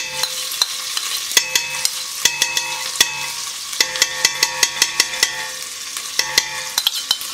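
Metal spoon tapping and scraping butter off a stainless steel bowl, many quick clinks that ring with metallic tones, over a steady sizzle of butter melting into hot oil in a stainless steel pot.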